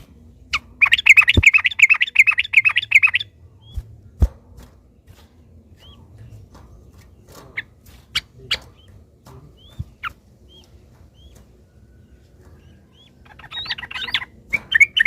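Yellow-vented bulbul (trucukan) song: a fast rattling run of repeated bubbly notes about a second in, then scattered single short calls, and another fast run near the end.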